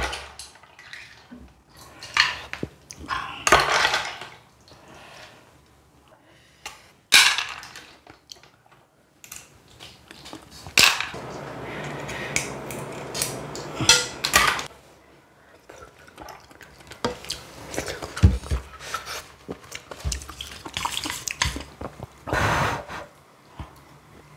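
Spoon and chopsticks clinking and scraping against a bowl of clam kalguksu in scattered short knocks, with a stretch of softer stirring and liquid noise in the middle.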